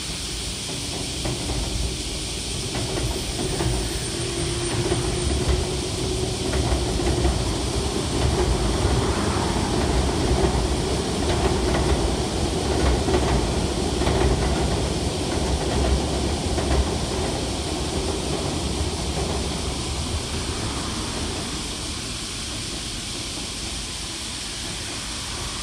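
Electric commuter trains crossing a railway bridge: a steady rumble with wheel clatter over the rail joints. It builds over the first few seconds, is loudest through the middle and fades away toward the end.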